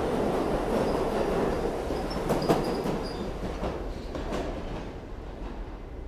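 New York City subway train running past and away into the tunnel: a heavy rumble of wheels on rail with sharp clacks over rail joints about two and a half seconds in and faint high wheel squeals. The noise fades steadily over the last few seconds as the train recedes.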